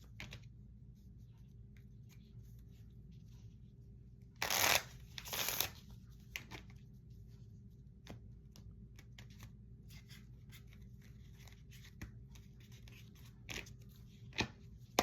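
Tarot cards being handled: two short bursts of shuffling a little over four seconds in, with light taps and clicks of cards throughout and a couple of sharper card snaps near the end.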